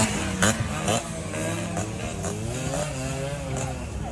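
Suzuki AX100-class single-cylinder two-stroke motorcycle engine running as the bike rides close past and draws away, its sound slowly fading. A sharp knock about half a second in.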